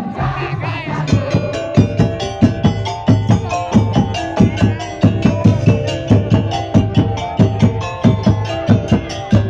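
Madurese ul-daul percussion music: a fast, steady rhythm of wood-block and drum strikes, with ringing pitched notes over it.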